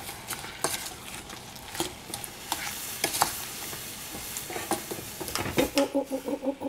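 Wooden spoon stirring chunks of strawberry and apricot in a small stainless steel saucepan, knocking repeatedly against the pan, over a steady sizzle of the fruit cooking. Near the end a brief buzzing, pulsing tone joins in.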